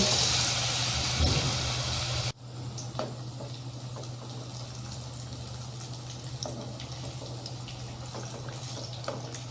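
Besan-battered pumpkin pieces deep-frying in hot mustard oil: a steady sizzle with small crackles. It is loud for the first two seconds, then cuts abruptly to a quieter sizzle.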